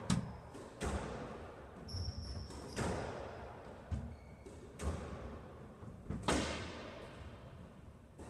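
Squash rally: the ball is struck by racquets and hits the court walls, with a sharp hit about every second and echo in the court after each. There is a short high squeak of shoes on the court floor about two seconds in, and one of the loudest hits comes a little over six seconds in.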